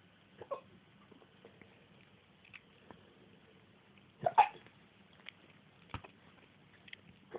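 A person's repeated hiccups, short and sudden, one about half a second in and the loudest just past the middle, with fainter catches between.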